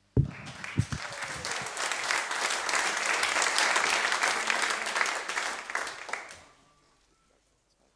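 Audience applauding. It starts with a sharp thump, builds to a peak, and dies away about six and a half seconds in.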